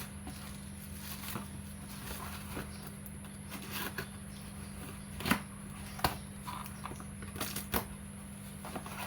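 Hands opening a parcel: scattered clicks, rustles and crinkles of packaging, with a sharp snap about five seconds in, over a steady low hum.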